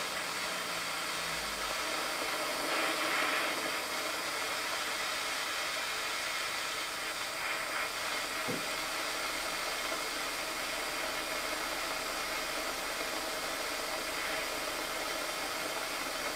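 Gas blowtorch flame burning with a steady hiss, with a faint knock about eight and a half seconds in.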